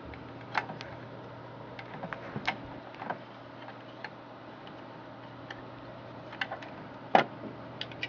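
Scattered small metal clicks and ticks as a hex key turns a long screw out of a plastic computer casing, with one louder click about seven seconds in, over a steady low hum.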